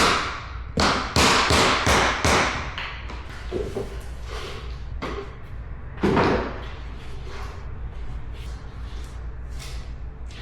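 Vinyl click-lock floor planks being tapped into place with a mallet and tapping block: a quick run of sharp knocks in the first couple of seconds, one louder knock about six seconds in, then lighter taps near the end.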